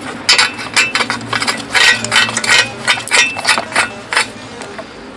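Metal tool on the bolts of a two-stroke engine's reed-valve intake manifold: a quick, irregular run of sharp metallic clicks and clinks as the bolts are undone, stopping about four seconds in.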